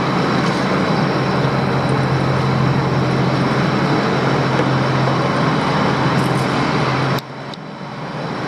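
A motor vehicle engine running steadily with road noise. About seven seconds in, the sound cuts off abruptly and then slowly builds back.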